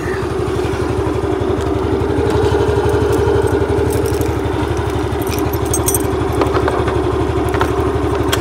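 Yamaha Fascino scooter's single-cylinder four-stroke engine idling steadily with the scooter standing still.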